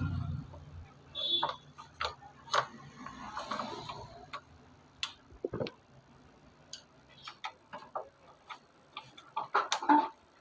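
Irregular metallic clicks and taps of hand tools and small brake parts being handled during motorcycle disc brake reassembly, with a few louder knocks and one short ringing ping.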